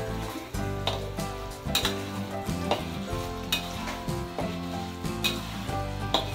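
Sweet soy and chili sauce sizzling and bubbling in a wok while a metal spatula stirs and scrapes around the pan, with background music playing.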